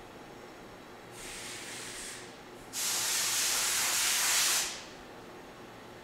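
Two bursts of compressed air hissing: a short fainter one about a second in, then a louder one of about two seconds that cuts off near the five-second mark.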